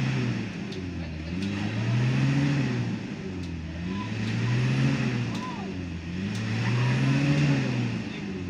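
A car engine revving up and easing off again and again, about every two and a half seconds, as the vehicle is rocked back and forth to free it from deep mud, its wheels spinning.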